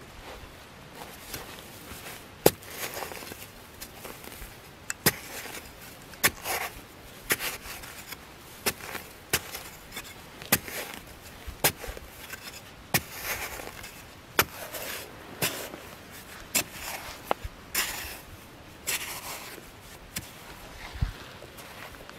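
A hand digging tool striking and scraping into dry, sandy soil about once a second, with clods of dirt thrown out of the hole.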